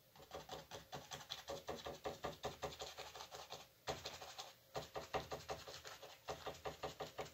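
Stiff, rough-tipped flat paintbrush stippling: rapid light taps of the bristles straight down onto a stretched canvas, several a second, with a couple of brief pauses near the middle.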